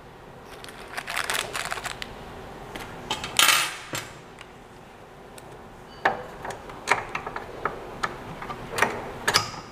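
Hand assembly of a Creality CR-20 Pro 3D printer: scattered clicks and clinks of small metal parts and tools being picked up and fitted to the frame, with a short rustle about three and a half seconds in, the loudest sound.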